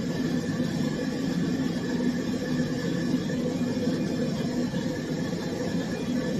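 Pet grooming dryer running at a steady level: a constant motor hum with rushing air.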